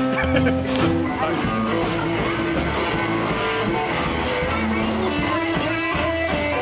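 Blues music: plucked and strummed guitar over a steady bass line.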